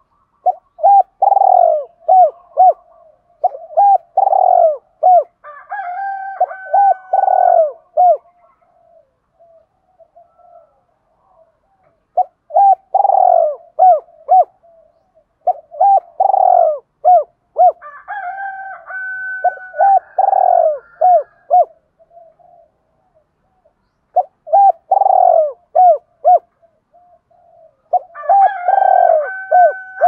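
Spotted dove cooing in three bouts about ten seconds apart. Each bout is a run of quick, repeated short coos that ends in a longer held note. This is the cu gáy calling song that keepers use on a caged decoy bird to draw wild doves.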